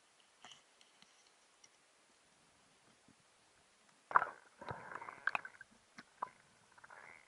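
Underwater clicks and knocks picked up through a camera housing during a spearfishing dive. The first few seconds are almost silent. A sudden loud knock about four seconds in is followed by a run of irregular clicks, knocks and short rushes of noise.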